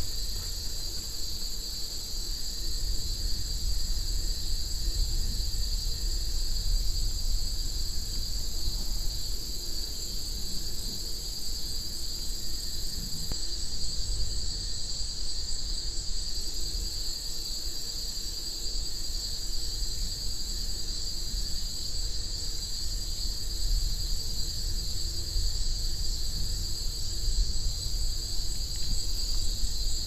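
A chorus of insects trilling steadily at two high pitches, with a low rumble underneath.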